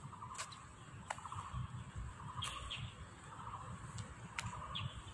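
Birds calling: a short rapid trill repeated several times, with a few brief higher chirps, over a low rumble and a few sharp clicks.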